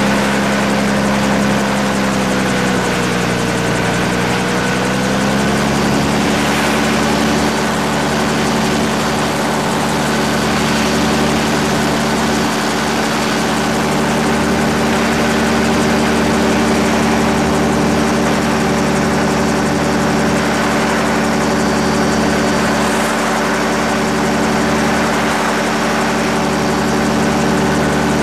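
Gyrocopter's Rotax 532 two-stroke twin-cylinder engine and propeller running steadily in flight, heard from on board. The engine note dips a little a few seconds in, then comes back up and holds.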